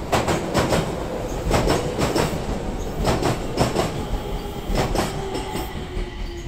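Enshu Railway 2000-series electric train passing close by, slowing as it arrives at a station, its wheels clacking over rail joints in repeated pairs of beats. A steady whine comes in during the second half, dropping slightly in pitch.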